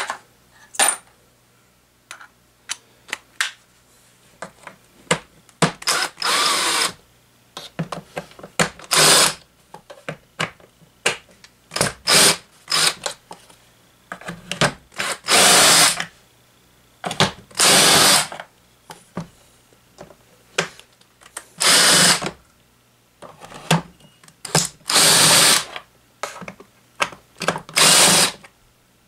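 Ryobi cordless drill-driver backing screws out of a plastic fan grille, in about eight or nine short whirs spread a few seconds apart. Small clicks and knocks from the screws and handling fall between the bursts.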